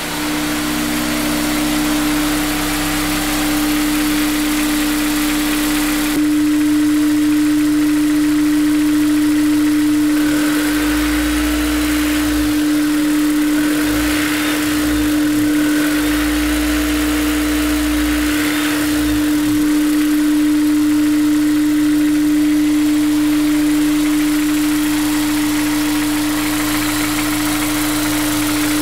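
Honda S2000's inline-four engine idling steadily while it warms up. The owner suspects a possible timing chain tensioner problem behind the noise.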